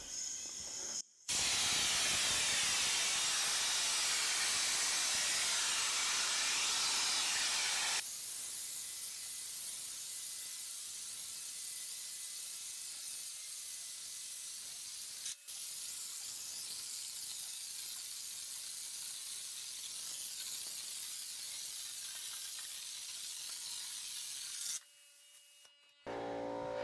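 Texture gun spraying wet popcorn-ceiling texture: a steady hiss of air and spray. It starts about a second in and is loudest for the first several seconds. It breaks off briefly about midway and stops shortly before the end.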